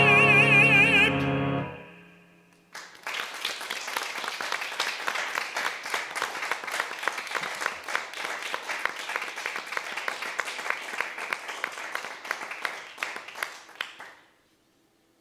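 A male opera singer holds a final note with vibrato over a grand piano, ending about a second in. After a short pause, applause starts and goes on for about eleven seconds, then stops.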